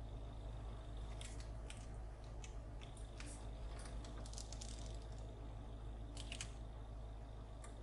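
Faint low hum of a Range Rover Evoque's engine heard inside the cabin while the car reverses slowly, with scattered light clicks and ticks.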